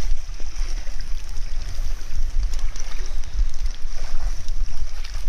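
Wind buffeting the microphone in an uneven low rumble over a steady hiss of rain.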